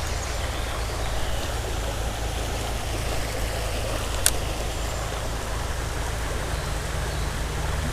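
Steady rushing of a small creek's running water, with a low rumble underneath and a single sharp click about four seconds in.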